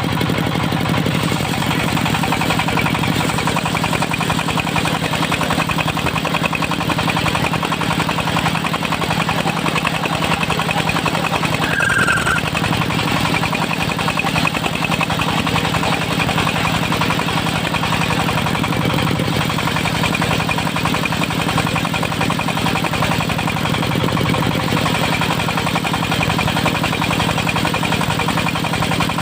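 Dongfeng diesel engine of a mobile circular sawmill running steadily with an even firing rhythm, with a brief high squeak about twelve seconds in.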